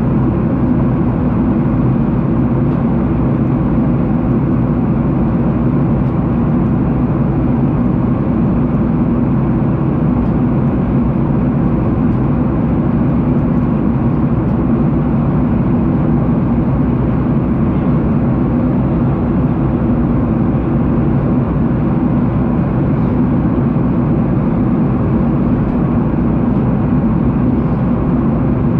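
Steady jet airliner cabin noise: a constant low rumble of engines and rushing air, unchanging throughout.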